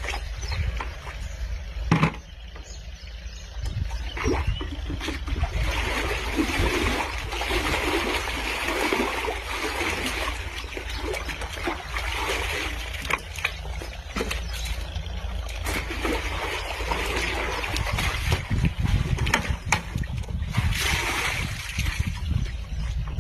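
Water splashing and pouring as it is drawn out of a well, after a single sharp knock about two seconds in.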